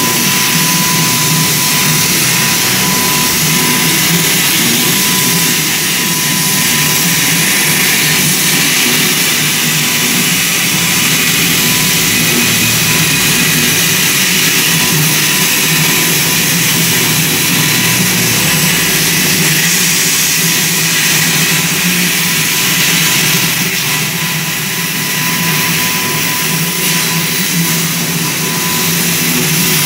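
CNC plasma torch cutting steel plate: a loud, steady hiss of the arc and its air jet, with a thin steady tone through it.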